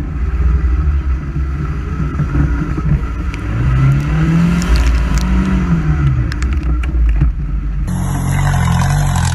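Off-road buggy engine running under load through grass and mud, its pitch rising and falling as the throttle is worked, with sharp ticks of grass and stems striking the frame. About eight seconds in, the sound cuts to a buggy engine revving, heard from outside the vehicle.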